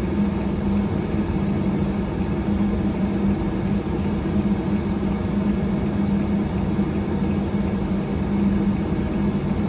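Steady low vehicle hum with a constant droning tone, as of a car running, heard from close by.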